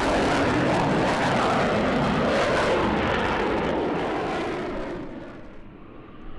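Aircraft engine noise, loud and steady, then fading away over the last two seconds as the aircraft moves off.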